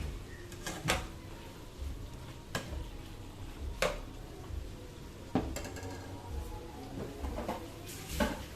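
Cooking utensil clinking and scraping against a pan as fried eggplant pieces are tipped into the simmering curry and stirred: about five sharp separate knocks a second or more apart.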